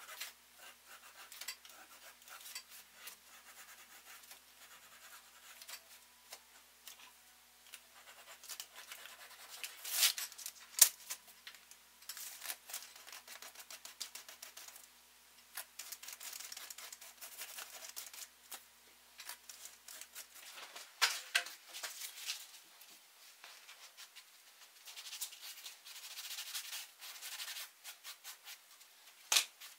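Gloved hands rubbing antique stain into a thick leather strap: faint scratchy rubbing and wiping, with a few sharp clicks partway through.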